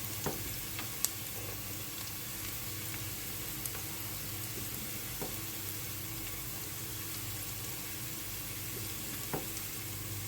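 Sliced onions frying in hot oil in a cooking pot: a steady sizzle, with a few light knocks, likely from stirring, about a second in and again near the end.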